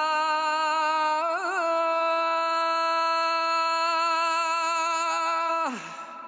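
Azan (Islamic call to prayer) sung by a solo male voice, holding one long high note on the word 'Allah' with a short wavering ornament about a second in. Near the end the note glides sharply down and fades into reverb.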